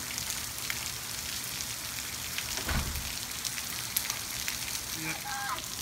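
Steady rain falling: an even hiss with scattered drop patter, and a dull low thump about halfway through.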